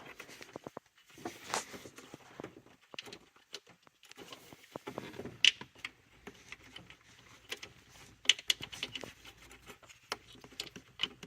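Scattered small clicks, knocks and rattles of hands working a plastic ignition coil out of its spark plug well on a Ford 4.6 two-valve V8, the coil not coming free; the worker suspects its retaining bolt is not fully unscrewed.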